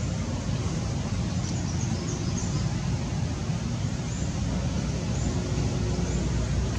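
Steady low outdoor rumble with an even hiss above it, and a few faint high chirps now and then.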